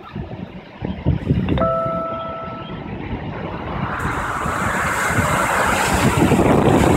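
Typhoon-force wind buffeting the microphone in heavy gusts, building into a louder rush about four seconds in. A short steady tone sounds for about a second, about one and a half seconds in.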